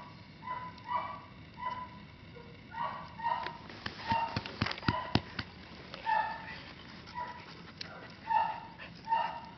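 A dog barking repeatedly in short, high-pitched barks, about one a second, with a few sharp cracks in a cluster near the middle.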